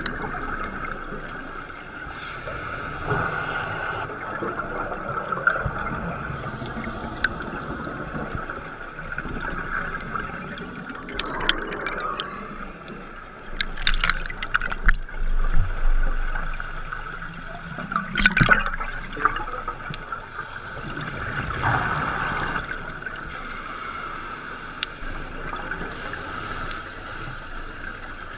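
Scuba diver breathing through a regulator, heard underwater through a GoPro's housing: several bursts of exhaled bubbles gurgling past at irregular intervals over a steady muffled hiss.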